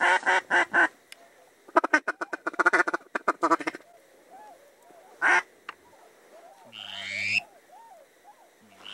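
Duck quacking: a run of about five loud quacks, then after a pause a fast, chattering run of quacks lasting about two seconds, and a single quack about five seconds in. Softer repeated calls continue underneath, and a rising squeal comes near the end.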